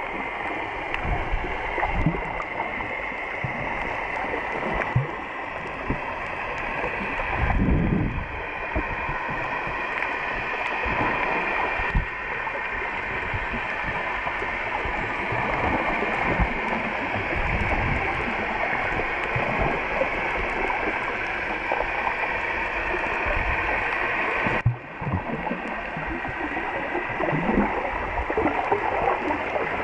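Muffled underwater sound picked up by a camera held below the surface: a steady water rush and gurgling with scattered low thumps, the loudest about eight seconds in.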